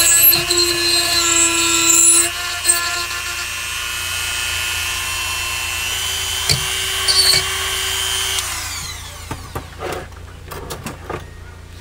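Dremel rotary tool running at high speed, grinding to widen a car door's speaker opening: a steady high whine whose pitch shifts slightly as the bit bites. It winds down about eight and a half seconds in, and a few light clicks and taps follow.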